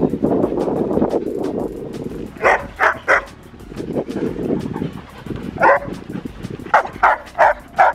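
Dogs barking back and forth across a chain-link fence: three short sharp barks in quick succession about two and a half seconds in, then a run of four or five more near the end, with a low rumbling noise in between.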